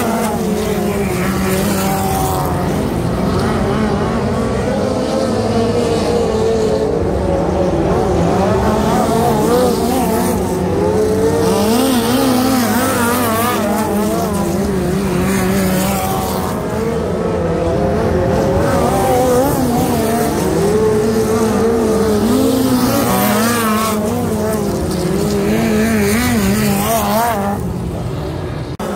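A field of USAC midget race cars' four-cylinder engines running laps around a dirt oval. Several engine notes overlap, their pitch rising and falling as the cars pass and fade around the track.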